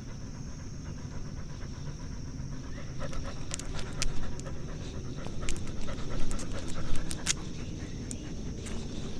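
A dog panting heavily, heard very close from a camera strapped to its back. Sharp clicks and rattles come in from about three seconds in.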